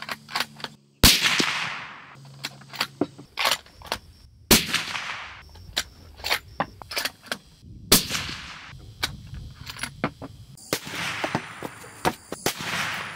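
Three shots from a suppressed 7mm Remington Magnum bolt-action rifle (Tikka T3X), about three and a half seconds apart, each with a short ringing tail, and small clicks and clacks of the bolt being worked between them. Two weaker reports follow near the end.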